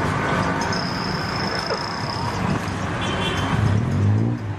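Busy street-market background of road traffic with music playing. A motor's low hum swells and rises in pitch near the end.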